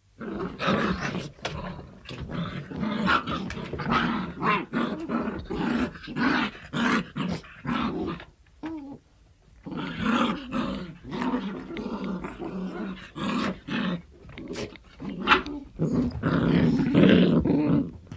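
Dog growling in short, irregular, rough bursts, pausing briefly about nine seconds in.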